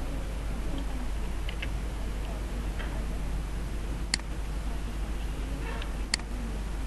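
Two sharp computer mouse clicks about two seconds apart, with a few fainter ticks between them, over a steady low hum.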